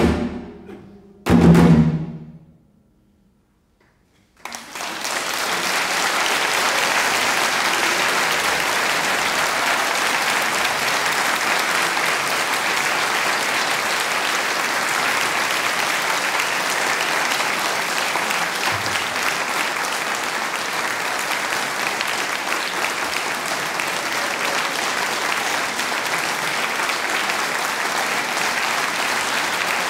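The last notes of a trio of cello, 25-string gayageum and janggu drum: a chord dies away and a final loud accented stroke rings out about a second in. After about two seconds of silence, an audience breaks into steady applause that does not let up.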